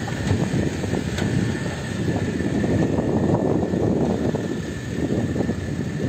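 Wind buffeting a phone microphone in the open bed of a moving pickup truck, over the truck's road noise. The rush is uneven and strongest in the low register.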